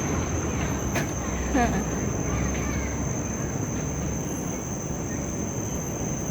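Forest insects droning in one steady high-pitched whine over a low rumble, with a click about a second in and a brief gliding call about one and a half seconds in.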